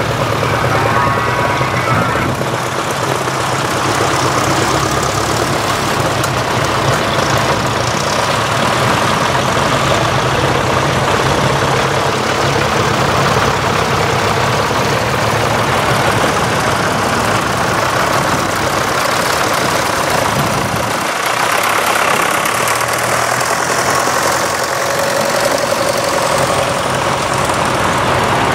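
A procession of vintage tractors, among them grey Fergusons, blue Fordsons and red Massey Fergusons, drives past one after another, their engines running and knocking steadily as each one passes close by.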